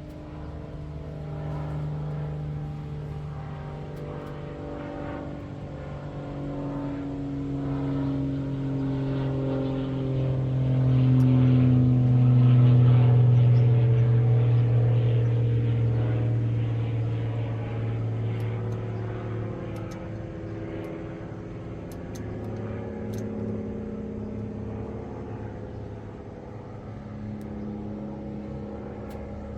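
A motor vehicle's engine running, its hum swelling to its loudest about halfway through and then fading back down.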